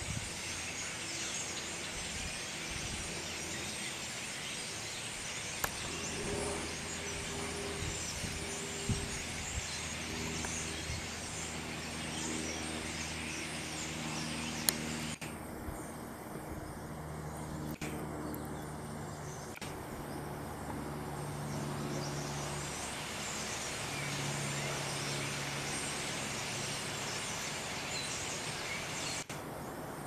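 A large flock of birds chattering in the trees, a dense mass of overlapping chirps that drops away for several seconds past the halfway point and then comes back. A steady low engine hum runs underneath.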